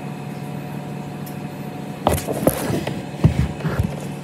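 Steady mechanical hum of another washing machine running, with a few clicks and low thumps from about two seconds in.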